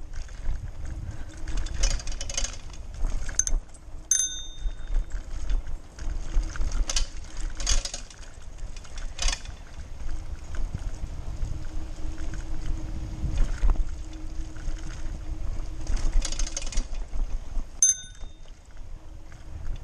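Wind buffeting the microphone and a steady rumble from a Lime hire bike riding along a paved path, with short rattles over bumps and a faint steady hum. Two brief high ringing notes, about four seconds in and near the end.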